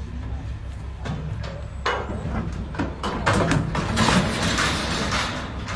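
Longhorn cattle's hooves knocking on a livestock trailer's floor and ramp, with the trailer's metal rattling, as the animals step out to unload; the knocks come thicker from about two seconds in. A steady low hum runs underneath.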